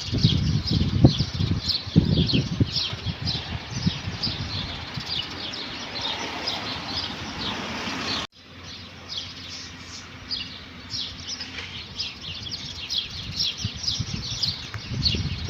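Many small birds chirping together in a dense chorus of quick, high, falling chirps. A low rumble sits under the first half, and the sound cuts off suddenly about halfway through before the chorus resumes with the rumble much quieter.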